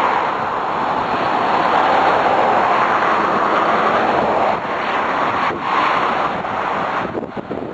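Strong wind rushing over the microphone, a steady loud noise that eases a little near the end.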